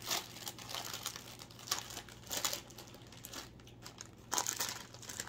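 Foil-lined plastic snack bag being pulled open and crinkled by hand, a run of irregular rustles and crackles.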